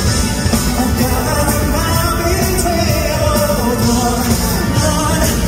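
A live pop-rock band with drums plays loudly with a steady beat under a male lead vocal, heard through a phone microphone in a concert hall.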